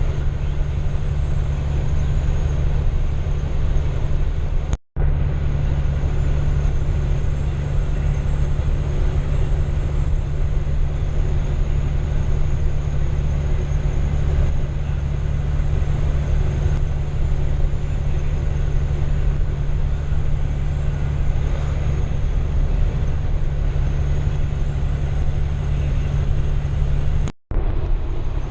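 Diesel engine of a large farm machine running steadily under load, a deep even drone. It cuts out briefly about five seconds in and again near the end.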